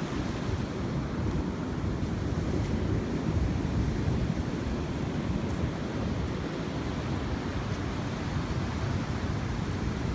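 Sea surf washing steadily onto the shore, with wind noise on the microphone.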